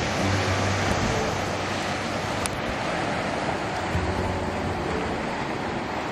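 Sea surf washing onto a pebble beach below, a steady rushing wash of waves, with wind rumbling on the microphone in gusts about half a second in and again about four seconds in.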